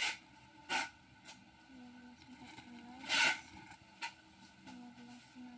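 Plastic packaging and wrapped goods being handled: several short rustles, the longest about three seconds in.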